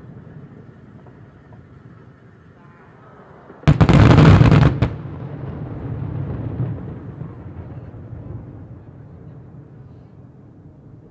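Aerial fireworks: about four seconds in, a sudden loud crackling salvo of reports lasting about a second, followed by a low rolling rumble of echoes that fades over several seconds. The echoing rumble is meant to imitate thunder.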